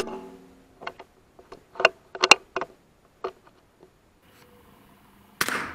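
A single sharp crack of a PCP air rifle shot. It is followed by a run of irregular short knocks and rattles, typical of a shot rat thrashing among loose stones. A longer rustling burst comes near the end.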